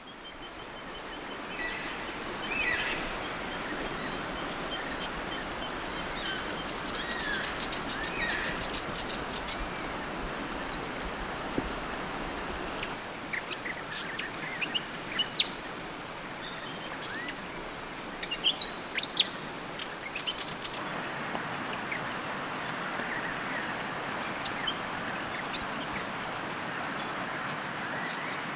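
Birds chirping and calling over a steady background rush of water from the river and rain. The calls come scattered through, busiest in the middle, with a quick run of ticking notes near the start.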